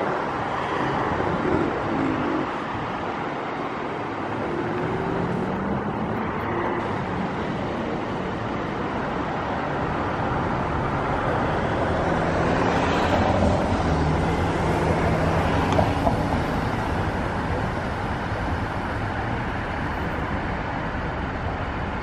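Steady road traffic noise. About halfway through, a vehicle passes with a low engine hum that swells and then fades.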